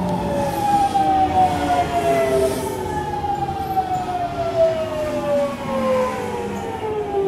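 Nankai electric commuter train pulling out of the station: its traction motors give a whine of several stacked tones that falls slowly and steadily in pitch as the train moves away.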